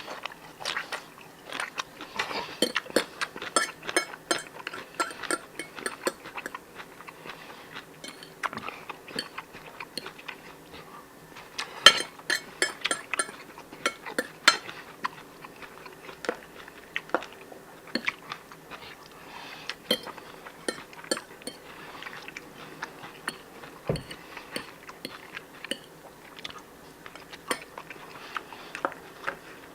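Person eating close to the microphone: chewing, with many sharp little clicks throughout, some in quick runs.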